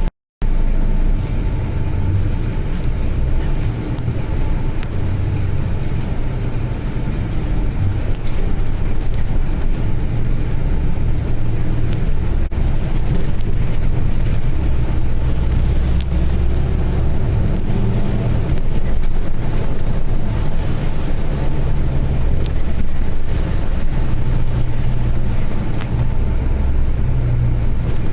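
Volvo B8 bus driving along: a steady low engine rumble with road noise, swelling and easing with the engine's effort. The audio cuts out briefly just after the start.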